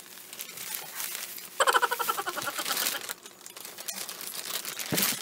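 Plastic bubble wrap crinkling and rustling as it is pulled and crumpled off a package by hand, with a louder burst of crackling about a second and a half in.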